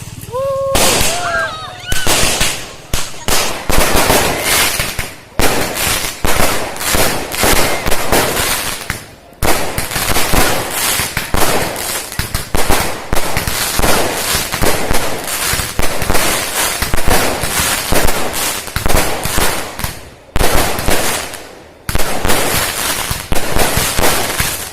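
A fireworks barrage going off in a dense, rapid crackle of sharp cracks, many per second, with a few short lulls. It is the final and largest firework of the display.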